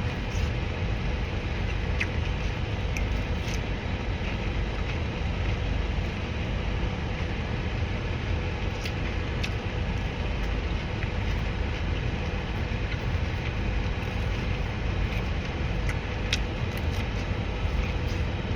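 A steady low rumble with a few faint, scattered clicks and taps from eating.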